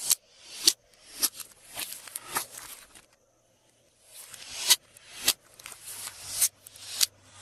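Glossy slime being worked by hand: a run of wet, crackly swells, each building up and ending in a sharp pop, with a short pause about three seconds in.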